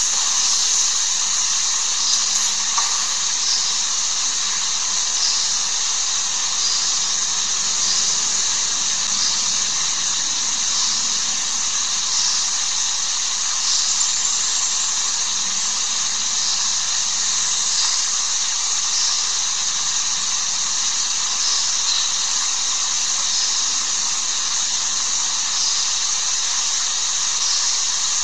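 A steady high-pitched hiss at an even level, with no other sound standing out.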